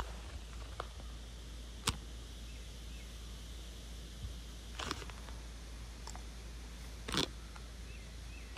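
Wind rumbling steadily on the microphone outdoors, with a few brief sharp sounds about every two to three seconds.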